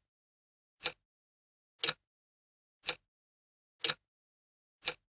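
Short ticks, evenly spaced about once a second, five in a row with silence between them.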